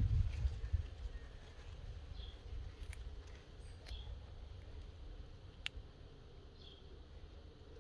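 Tortoise biting at bean plant leaves: a few sharp, separate clicks and snaps. A low rumble, loudest in the first second, and a few faint short high chirps sit behind it.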